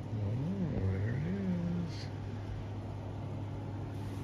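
Domestic cat giving a low, wavering yowl with a hair tie in its mouth, rising and falling twice over about two seconds: the call cats often make while carrying a toy back. A steady low hum runs underneath.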